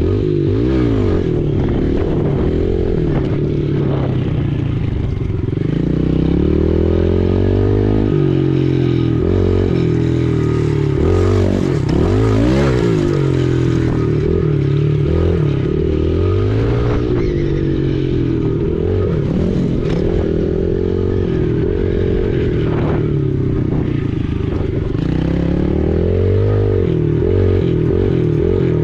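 Pit bike engine running on a ride, its pitch climbing and dropping back again and again as the throttle is opened and eased off.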